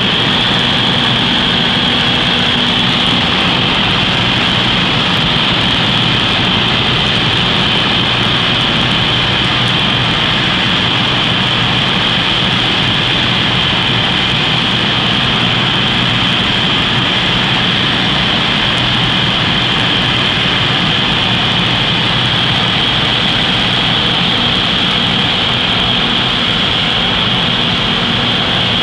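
Cessna light aircraft's piston engine and propeller running steadily in flight, heard from inside the cabin as a loud, even drone with a strong hiss of engine and wind noise.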